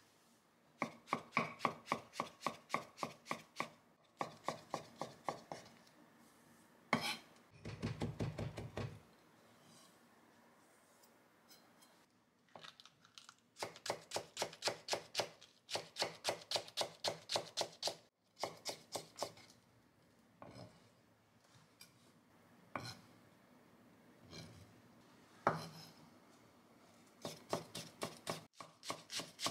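Chef's knife chopping shiitake stems and green bell pepper on a wooden cutting board, in quick runs of strikes about five a second with short pauses between runs.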